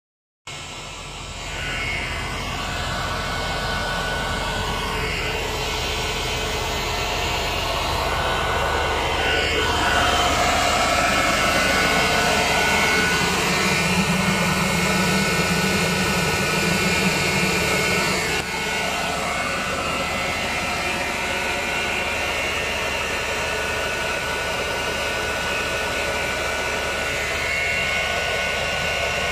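Massey Ferguson 165 tractor running steadily while pulling a pneumatic seed drill. The drill's air fan adds a continuous whine over the engine's hum.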